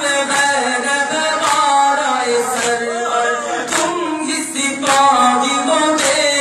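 A man chanting a Shia nauha (mourning lament) unaccompanied through a microphone, with sharp slaps of mourners beating their chests (matam) in a steady beat about once a second.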